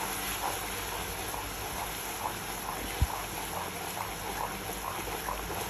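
Thick, reduced sorrel sauce bubbling in a saucepan as a wooden spoon stirs it, with one sharp knock about three seconds in.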